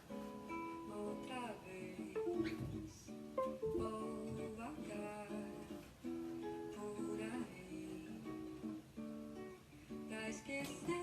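Background music played on a plucked acoustic guitar.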